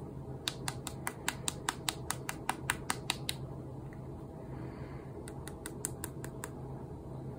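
Light, sharp clicks in quick succession, about five a second, like typing: a run of about fifteen, a pause of about two seconds, then a shorter run of about eight. A low steady hum sits underneath.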